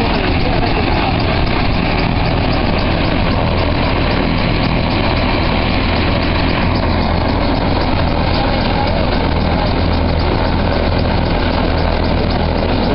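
Helicopter running on the ground at idle, its engine and rotor making a steady, loud, unbroken drone.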